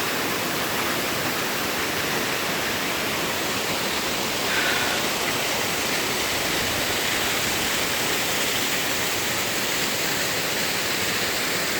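Steady rush of water from a waterfall, an even noise with no breaks.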